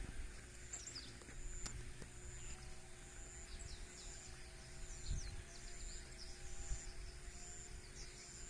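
Faint outdoor evening ambience: high chirps repeating about once a second and many short falling calls from insects and birds, over a low steady rumble.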